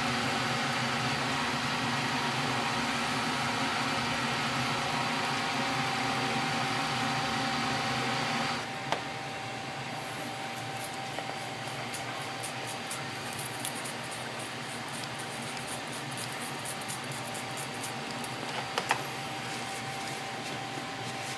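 Kitchen ventilation fan running steadily with a hum; about eight and a half seconds in it cuts to a quieter steady hum with scattered light clicks and taps.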